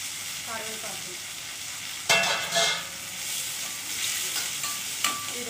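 Chopped onions and tomatoes sizzling in hot oil in a stainless-steel pan as they are stirred with a metal spatula. There is a loud metallic clang with a short ring about two seconds in, and a sharp clink near the end.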